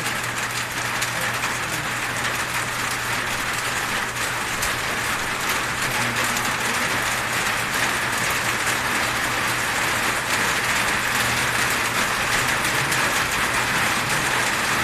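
Electric hair clippers running with a steady low buzz, over a constant hiss.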